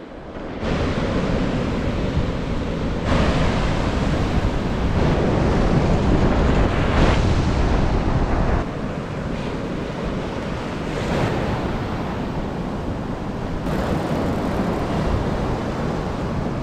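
Ocean surf washing on a sandy beach, with wind rumbling on the microphone.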